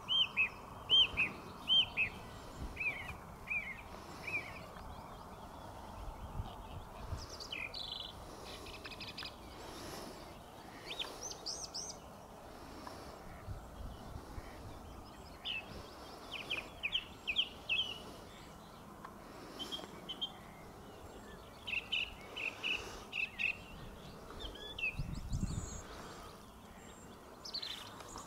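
Goslings peeping: many short, high chirps in quick runs, over steady outdoor background noise, with a brief low rumble near the end.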